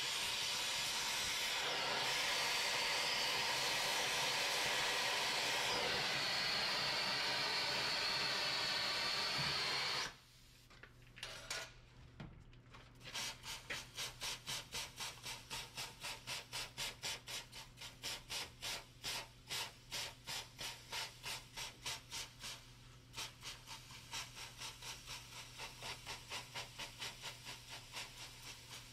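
Oxy-fuel cutting torch hissing steadily as it cuts through steel, then shut off suddenly about ten seconds in. After a short pause, a hand spray bottle squirts water onto the hot steel about twice a second, each squirt hissing into steam.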